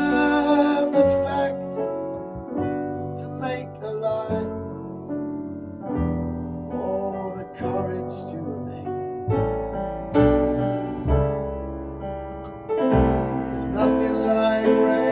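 Piano playing an instrumental passage of a slow ballad, chords struck every second or so over low bass notes.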